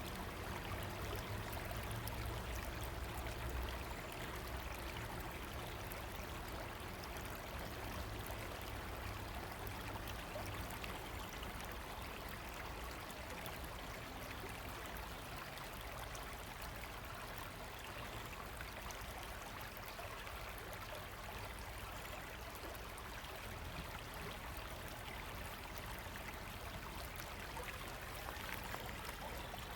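A river running: a steady rush of flowing water, with a little more low rumble in the first few seconds.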